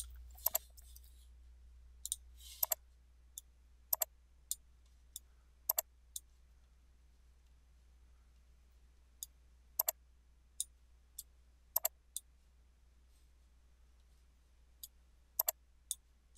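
Computer mouse buttons clicking: sharp single and double clicks at irregular intervals, with a couple of short lulls, over a faint low hum.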